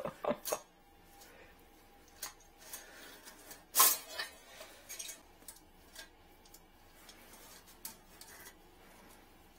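Scattered small clicks and rubbing from hands working a drain-fishing cable and tools, with one sharper click about four seconds in.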